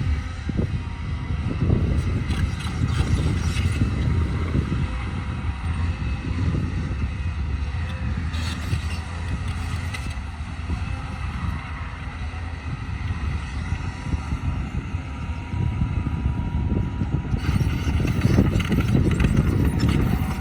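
Heavy engine running steadily, a low rumble that rises and falls unevenly and grows louder near the end.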